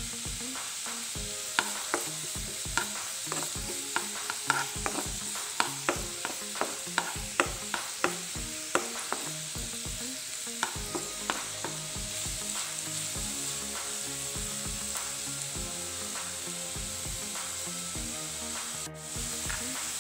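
Sliced onions and chopped ginger sizzling in oil in a nonstick frying pan, while a slotted spatula stirs them with sharp clicks and scrapes against the pan. The clicks come every half second or so in the first half and grow sparser after.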